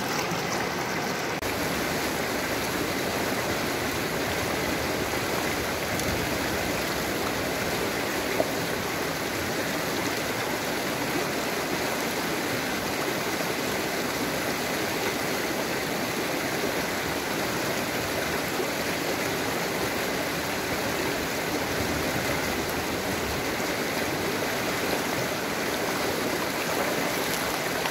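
Fast, shallow stream rushing over rocks and through rapids: a steady, even rush of water, with one brief click about eight seconds in.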